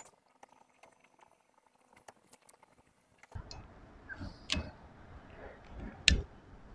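Plastic adapter of a banana-type wiper blade clicking faintly as it is worked onto the wiper arm's hook, with a sharper click about six seconds in as it snaps into place.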